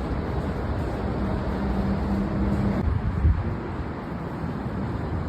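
New York City Subway 6 train arriving at the station: a steady low rumble of the train on the track. A held hum runs over it and stops about three seconds in.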